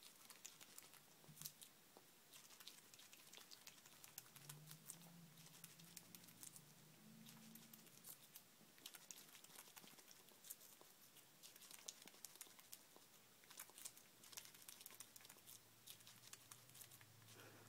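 Faint, irregular clicks and crackles of a baby grey squirrel nibbling and chewing a piece of peach.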